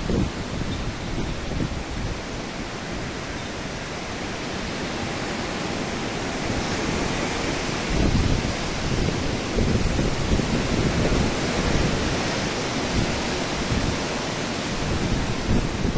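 Heavy wind blowing in gusts, with a steady rushing and low buffeting rumbles on the microphone that grow louder about halfway through.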